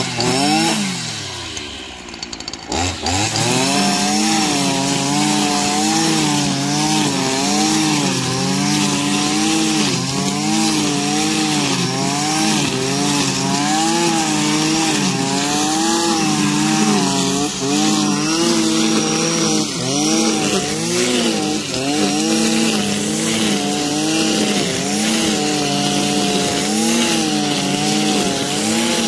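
Stihl petrol brushcutter engine running hard, its pitch wavering up and down as the cutting head works through tall, thick grass. Near the start it drops briefly toward idle, then revs back up about three seconds in.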